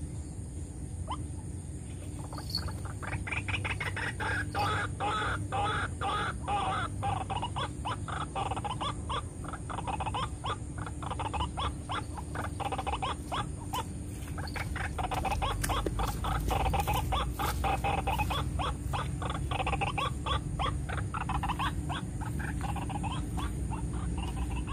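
White-breasted waterhen calling: a long, fast run of croaking notes that begins a couple of seconds in, briefly eases off midway and then picks up again.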